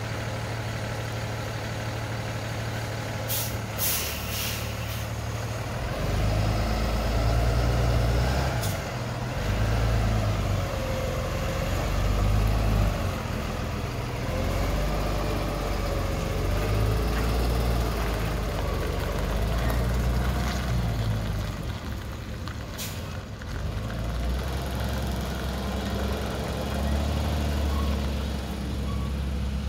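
Diesel engine of a PODS container delivery truck running and pulling away, with short sharp hisses of air released from its air brakes: a cluster about four seconds in and single ones later. The engine grows louder about six seconds in as the truck moves off.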